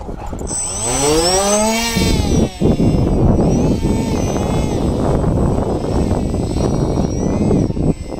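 Electric motor and propeller of a foam RC F-16 profile parkjet spooling up about a second in, its whine climbing steeply in pitch, then running on as a whine that keeps rising and falling in pitch as the plane flies. Under it there is a low rumble of wind on the microphone.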